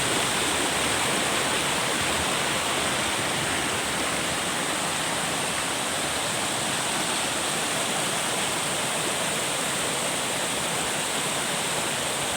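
Steady rush of flowing river water in a forest, an even continuous hiss.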